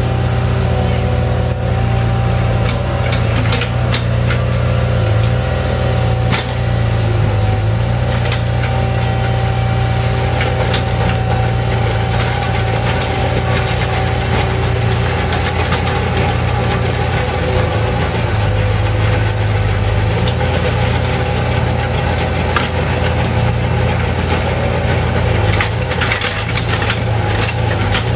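Heavy diesel engines of road-milling equipment running steadily, with scattered clicks and rattles that come thicker near the end.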